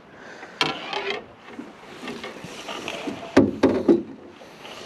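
Sharp knocks and thumps on the hull of a small aluminum fishing boat, the loudest three coming in quick succession about three and a half seconds in.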